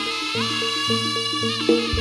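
Live traditional Javanese ensemble music: a quick, even pattern of short repeated percussion notes under a held melody line that slides up in pitch, with steady low drum tones.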